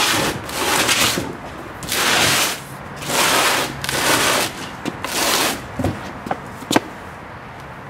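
A large cardboard mower box scraping across concrete pavers in a series of shoves, about half a second each, then a few light clicks near the end.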